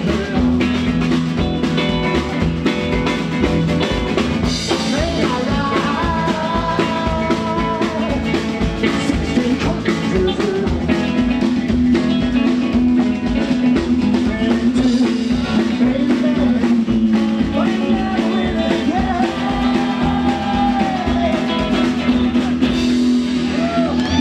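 Live rock and roll band playing with acoustic and electric guitars, upright double bass and drums over a steady driving beat.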